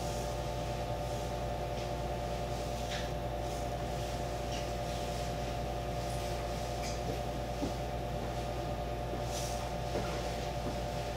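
Steady electrical hum of a stationary JR West 225 series electric train's onboard equipment, heard inside the driver's cab: several close-pitched tones over a low drone. A few faint clicks are scattered through it.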